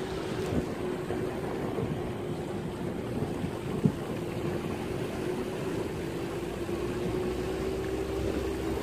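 Small boat's motor running steadily, its tone rising slightly in pitch, with water and wind noise underneath. A single sharp knock about four seconds in.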